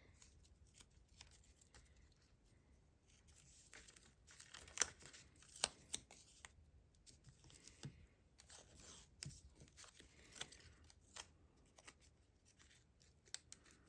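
Faint scattered rustles and small clicks of paper crafting: glue dots being peeled from their backing and pressed onto trim and cardstock. A few sharper ticks come about five seconds in.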